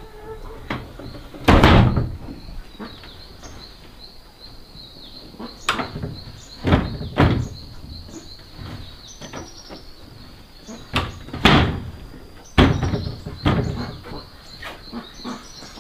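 Wooden window shutters being swung open and shut, knocking sharply against the wooden frame several times.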